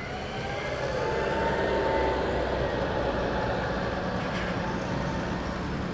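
Diesel tractor engines running steadily at idle, with no revving.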